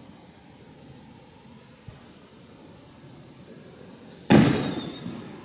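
An aerial firework shell bursting: a single sharp boom about four seconds in that rumbles away over about a second.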